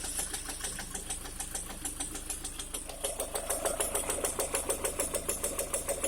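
Car engine running with a fast, even knock, about six or seven a second, which gets louder from about three seconds in. The knock persists after the piston group was replaced with non-interference pistons and 6,000 km of running-in.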